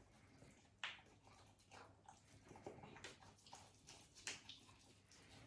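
A beagle chewing a burger: faint, wet smacking and chomping clicks at irregular intervals, the loudest about a second in and about four seconds in.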